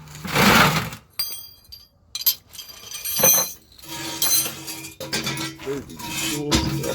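Metal tools and parts clinking, knocking and scraping while a gearbox cross member is undone under a car, with music playing in the background.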